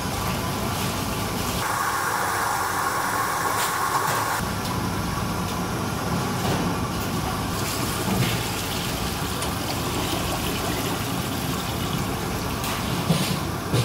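Steady commercial-kitchen noise: a constant machine drone with water running from a tap into a steel pot. A brief knock sounds near the end.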